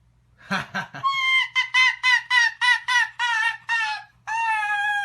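A bird calling: two short calls, then a quick run of short, repeated clucking notes, about three a second, ending in one longer held note.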